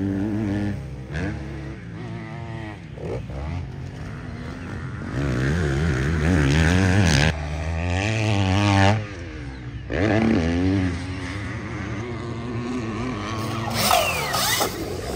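Motocross bike riding around the track, its pitch rising and falling again and again as it accelerates and backs off. A higher whine sweeps up and down near the end.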